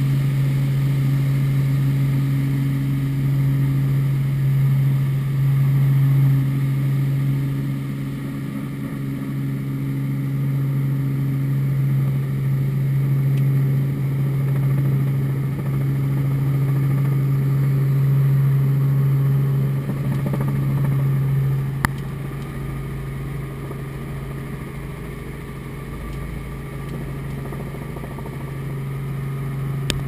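Light helicopter's engine and rotors heard from inside the cabin: a loud, steady low drone with a constant hum, easing slightly about two-thirds of the way through, with one brief click near there.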